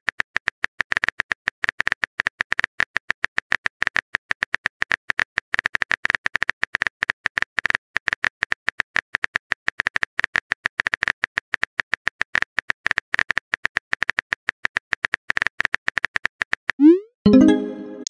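Rapid, irregular keystroke-click sound effects of a texting app while a message is typed out. Near the end comes a short rising blip and a brief louder tone as the message pops into the chat.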